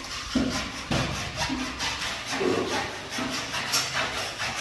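Hand sawing: a saw cutting with rasping back-and-forth strokes, about two a second.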